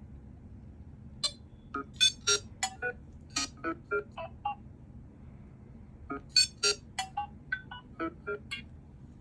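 A Nothing Phone (1) ringtone previewing through the phone's own speaker: two phrases of short, bleepy electronic notes, the second starting about six seconds in.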